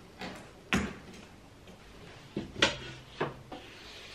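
A handful of sharp clicks and knocks from hand tools being handled while measuring and marking: a tape measure and a metal ruler knocking against an MDF board. The loudest knock comes about two and a half seconds in.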